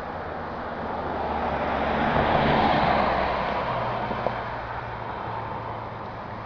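A vehicle passing on the road, its tyre and engine noise swelling to a peak about halfway through and fading away, over a steady low traffic hum.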